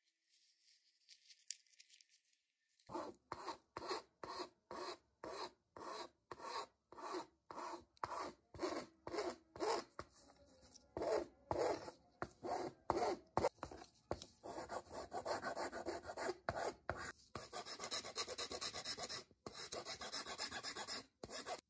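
Hand-worked abrasive rubbing on the knife, in regular back-and-forth strokes. It starts about three seconds in at about two strokes a second, then from about two-thirds of the way in becomes faster and nearly continuous.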